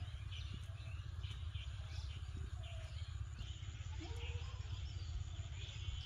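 Rural outdoor ambience: small birds chirping here and there over a steady low rumble, with faint distant voices briefly about two-thirds of the way in.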